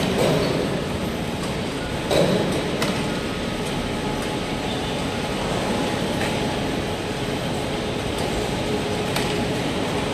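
Steady mechanical rumble and hiss, with a few faint clicks and a faint steady hum near the end.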